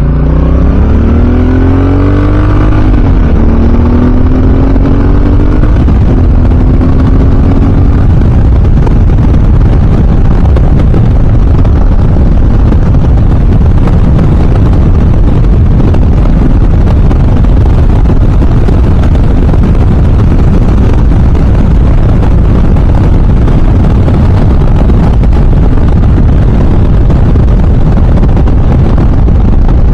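Honda Africa Twin DCT's parallel-twin engine accelerating, its pitch rising, dropping once at a gear change about three seconds in, then holding steady; from about eight seconds on, a loud, steady rush of wind and road noise at riding speed covers it.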